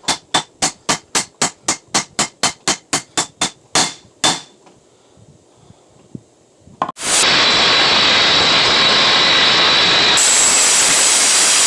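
A hammer hand-forging steel on an anvil, ringing blows about four times a second, which stop about four seconds in. About seven seconds in, a loud, steady rushing noise begins.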